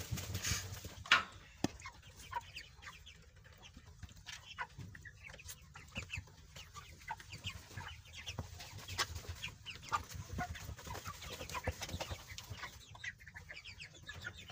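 A flock of four-week-old broiler chickens clucking and peeping in short scattered calls. A single sharp click stands out about a second in.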